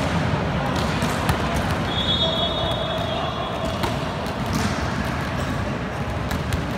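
Volleyball being bounced and handled between rallies in a large echoing sports hall: scattered sharp thuds over a steady din of footsteps and distant voices, with a brief faint squeak about two seconds in.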